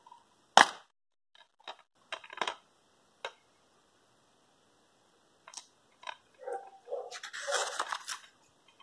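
A plastic DVD keep case snaps open with one sharp click about half a second in, followed by a few lighter clicks and taps as it is handled. Near the end comes a longer rustle and scrape as the printed card insert is slid out of the case.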